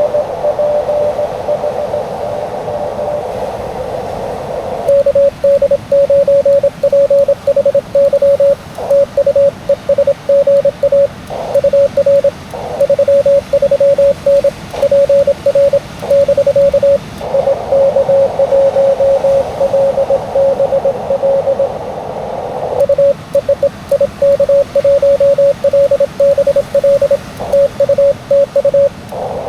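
Morse code (CW) from an amateur radio transceiver: a steady single-pitched beep keyed on and off in dots and dashes. At the start and again a little past the middle, the beeps are a weaker signal heard in the receiver's hiss. In between and toward the end they come as loud, clean keying with no hiss, like the set's own sidetone while sending, giving a back-and-forth CW exchange.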